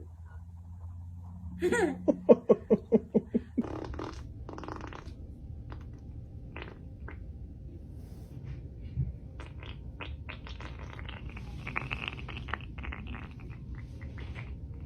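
A baby farting: a sputtering run of pops, about four a second, starting about two seconds in and lasting about two seconds. Fainter scattered clicks and noises follow.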